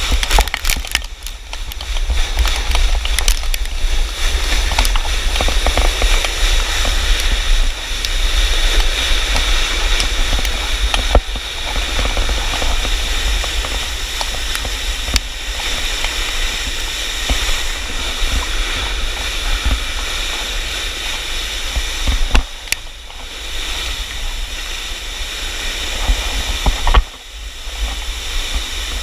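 Volcano board sliding fast over loose volcanic cinder, a steady rushing hiss mixed with wind buffeting the microphone. A few sharp ticks are heard as stones strike.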